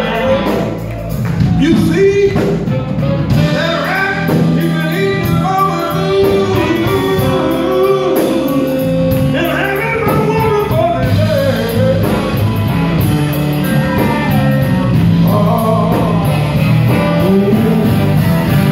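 Live blues band playing: drums and electric guitar under trumpet and saxophone, with a man singing. A long note is held for a few seconds in the middle.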